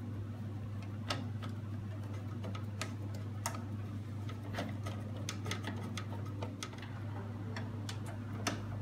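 Light, irregular clicks and ticks, about two a second, from a screwdriver turning a screw into the printer's metal frame. A steady low hum runs underneath.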